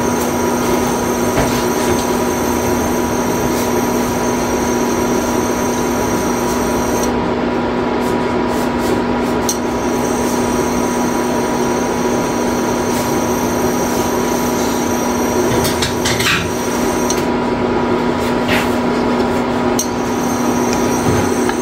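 Food being stir-fried in a pan, a spatula scraping and stirring over a steady sizzle and hum, with a few sharp clicks of utensil on pan.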